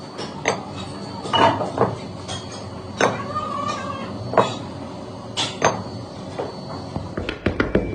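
Heavy cast-iron mould weights clanking against each other and against the steel casting flasks as they are lifted off freshly poured sand moulds: a string of sharp metal knocks, one ringing briefly about three seconds in, with a quick flurry of knocks near the end.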